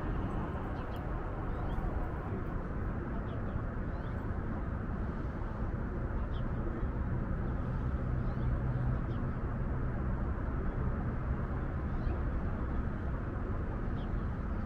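A steady, even rumble of outdoor background noise, with a few faint, short high chirps scattered through it.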